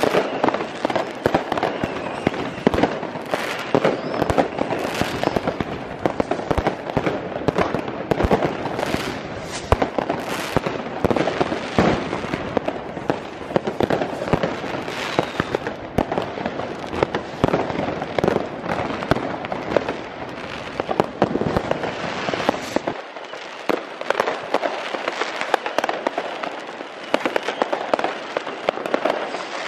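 Many New Year's Eve fireworks going off at once: a dense, unbroken stream of overlapping firecracker bangs and rocket bursts. The deep rumble under the bangs drops away near the end.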